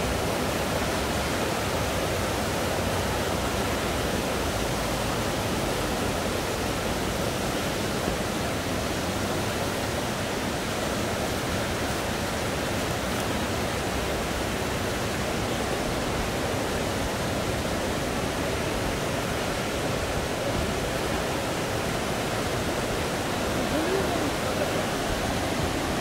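Mountain stream rushing over and between rocks: a steady, even roar of water.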